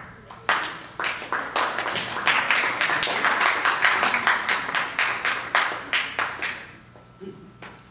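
Applause from many people clapping. It starts with a few separate claps, swells into a dense ovation, then thins out to scattered claps near the end.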